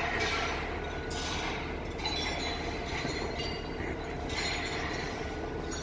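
Steady mechanical hum of cargo-handling machinery on a cargo ship's deck, with a hiss that swells and fades several times.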